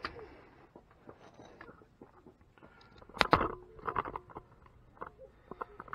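Scattered metallic clicks and knocks, loudest in a cluster about three seconds in, from a wrench tightening the lower mounting nut of a pickup's rear shock absorber.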